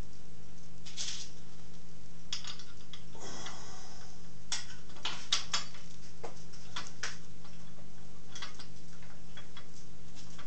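Light metal clicks and knocks from a cast-iron lathe tool rest being handled and slid along the lathe bed, with a short scrape about three seconds in, over a steady low hum.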